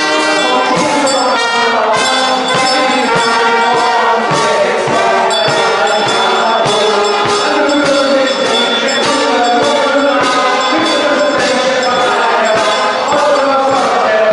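Brass marching band playing a march, with brass melody over a steady drum beat.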